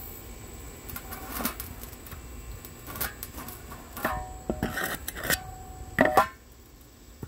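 Handling noise on a phone microphone: rubbing and a string of clicks and knocks as the phone is moved about. A few short pitched squeaks come between about four and six seconds, and the loudest knock comes at about six seconds.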